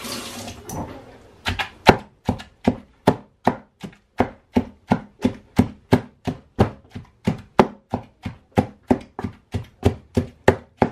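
Wooden pestle pounding ngai ngai (roselle) leaves in a wooden mortar: after a short rustle, a steady run of dull strikes at about four a second begins about a second and a half in.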